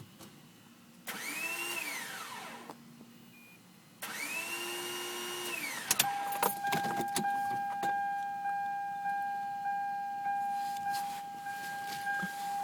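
Car starter motor whirring twice, rising in pitch as it spins up without turning the engine over, with the engine never catching. The first whir winds down, the second cuts off abruptly. A few clicks follow, then a dashboard warning chime repeating a little under twice a second.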